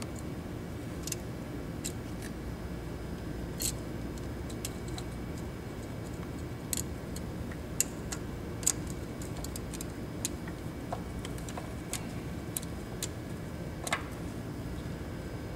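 Light metallic clicks and clinks at irregular moments, the loudest about two thirds of the way in, as the cam sprocket and timing chain are handled and fitted onto the camshaft in the Qlink Rodeo 700's cylinder head. A steady low hum runs underneath.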